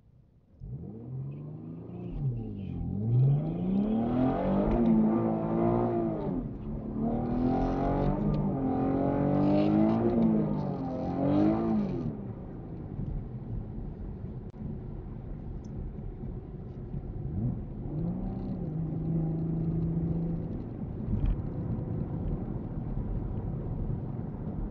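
A manual-transmission car's engine revving hard on a drag-strip launch and pass, heard from inside the cabin. The revs climb and drop several times through the gears, then the driver lifts off about twelve seconds in and it settles into a lower, steady drone. This is a run on which the driver says the clutch started slipping badly.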